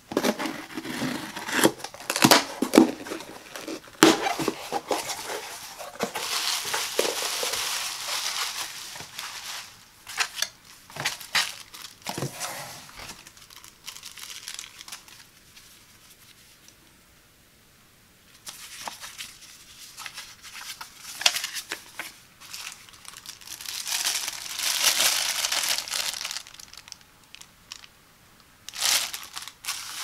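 Hands opening packaging: packing tape pulled and torn off a cardboard box with sharp crackles and cardboard rustling, a quieter spell of handling paper, then plastic bubble wrap crinkling loudly.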